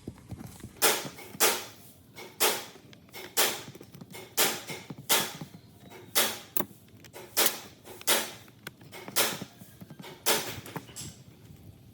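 A hand tool working on saw parts in a series of short, sharp strokes or knocks, about eleven of them at roughly one a second, with uneven spacing.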